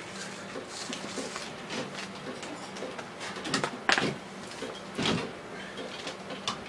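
Irregular knocks, clicks and scrapes of hand work at a wall, the loudest about four and five seconds in, over a faint steady hum.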